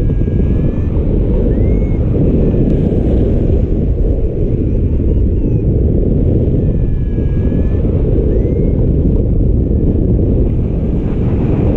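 Wind buffeting the microphone of a paraglider pilot's camera: a steady, loud low rumble. Faint high chirps that rise and fall sound now and then over it.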